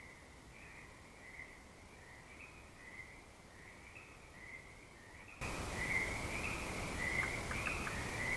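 Crickets chirping in a steady high night chorus. About five and a half seconds in, a louder, even hiss comes in over it, with a few faint short ticks in the middle of the hiss.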